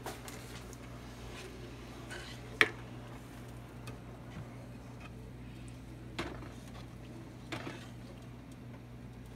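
A wooden spoon stirring liquid in a pot, with a few sharp knocks of the spoon against the pot, the loudest about two and a half seconds in, over a steady low hum.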